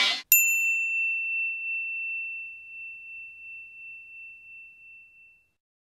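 A single high chime sound effect, struck once and ringing out as one clear tone that fades away over about five seconds.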